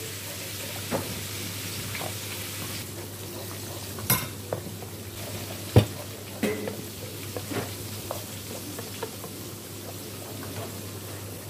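Spatula stirring minced beef in water in a nonstick wok, over a steady sizzle as the liquid heats toward the boil. Occasional scrapes and knocks of the spatula against the pan, the sharpest about halfway through.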